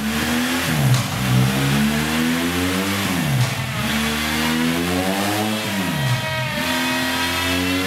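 BMW R1200 GS flat-twin boxer engine through a Zard carbon slip-on silencer with its dB-killer baffle fitted, pulling under throttle. The pitch climbs steadily and drops sharply three times, like upshifts through the gears.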